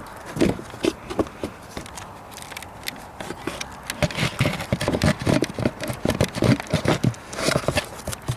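Irregular knocking, clicking and scraping of engine-bay parts being handled and pushed into place on a car, busier from about four seconds in.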